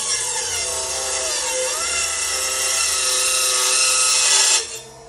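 Mini table saw's blade cutting through 3/8-inch plywood, a loud steady rasping cut with a shifting whine as the blade loads, ending abruptly near the end as the cut finishes; the saw's motor keeps running at idle afterwards.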